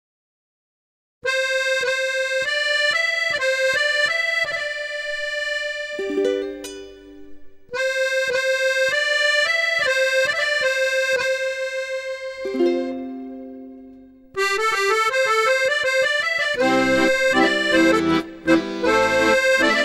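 Instrumental accordion music: a light melody of held notes over a steady plucked-sounding pulse, after about a second of silence. The phrase is played twice, each time answered by a few lower notes, and a fuller arrangement joins about two-thirds of the way through.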